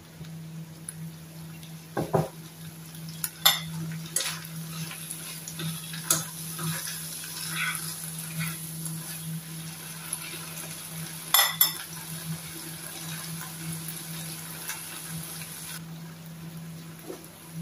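A spoon stirring food in a non-stick frying pan on a gas burner, knocking against the pan with sharp clinks several times over a steady sizzle of frying. A steady low hum runs underneath.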